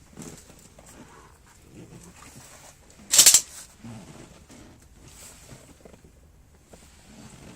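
Chevrolet Lacetti door lock working, with one loud clack about three seconds in and faint scattered knocks around it. This is the extraneous noise the lock is making.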